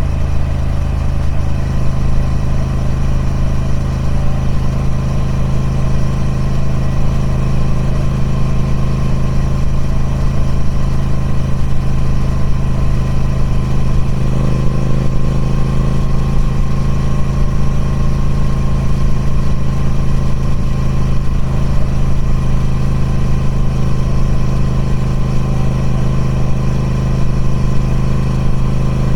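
Triumph Speed Twin 1200's 1200cc 270-degree parallel-twin engine running steadily through its stock exhaust, with a deep, even note that shifts slightly about halfway through.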